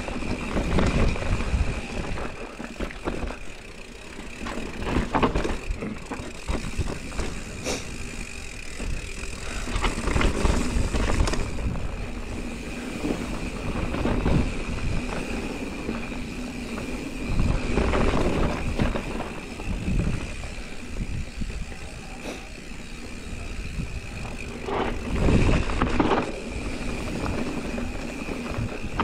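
Mountain bike riding down a dirt singletrack: knobby tyres rolling over dirt and the bike rattling, with a heavy thump every few seconds as it hits bumps and roots. A faint steady high tone sits under the noise.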